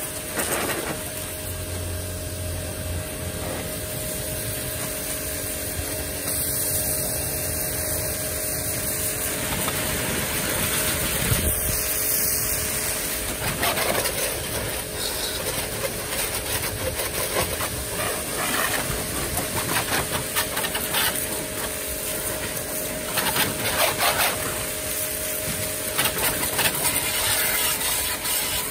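Yamasu mini pressure washer running with a steady hum while its water jet hisses against a motorcycle, the hiss swelling briefly a few times.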